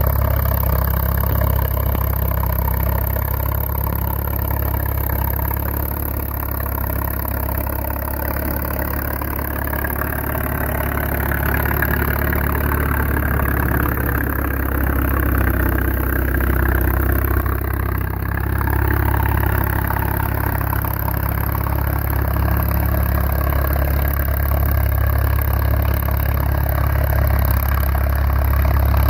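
Massey-Harris 25 tractor's engine running steadily under load while pulling a three-bottom plow through the soil.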